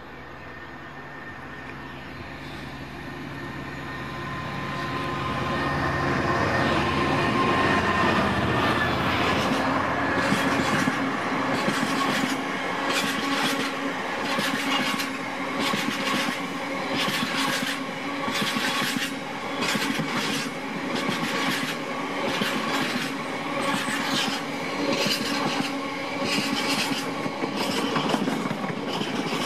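A diesel freight locomotive approaches, its engine growing louder over the first several seconds as it nears and passes. A long train of bogie hopper wagons then rolls by, wheels clicking over the rail joints about twice a second.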